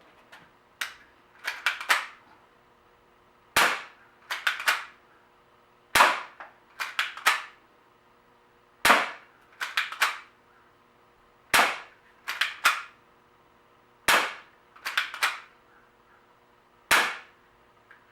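Barra 1911 spring-powered BB air pistol being fired repeatedly: about six sharp shots, one every two and a half to three seconds, each followed shortly by a quick run of clicks as the slide is pulled back to cock the spring and load the next BB.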